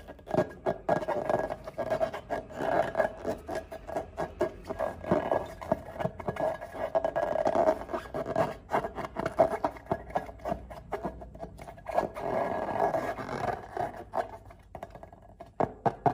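Slime being handled and scraped up close: a dense run of quick crackling clicks over a continuous rubbing, scraping sound.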